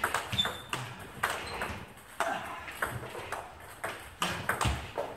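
Table tennis rally: the celluloid-type plastic ball clicking off the bats and the table, about two sharp clicks a second in an uneven rhythm.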